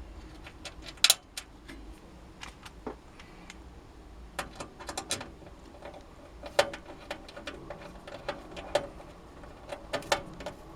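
Irregular small metallic clicks and taps of a screwdriver driving a motherboard mounting screw into the PC case, the sharpest click about a second in.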